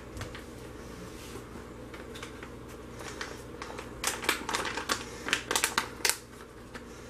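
Light clicking and rattling in two short spells, about four and five to six seconds in, from a container of cosmetic glitter being handled and shaken.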